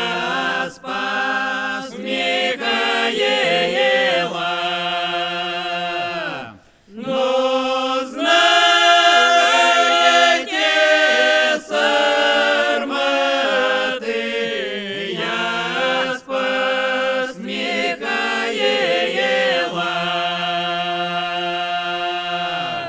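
A mixed group of men's and women's voices singing a slow, drawn-out Russian folk song in harmony without accompaniment. They take one short pause for breath about six and a half seconds in, sing the closing line, and stop together near the end.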